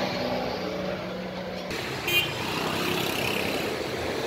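Road traffic: a motor vehicle's engine running steadily, with a brief louder sound about two seconds in.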